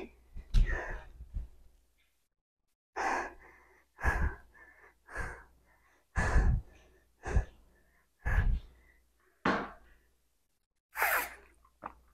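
A woman out of breath after a hard set of weighted squats, panting in heavy, loud breaths about once a second.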